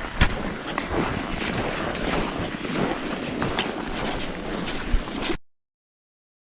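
Wind buffeting the microphone with the scrape of skis on snow while skiing downhill, with a few sharp clicks. It cuts off suddenly about five seconds in to dead silence.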